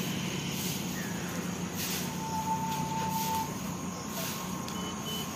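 Roadside outdoor ambience: a steady low hum and hiss, with one held whistle-like tone lasting about a second in the middle and faint short high beeps repeating about twice a second near the end.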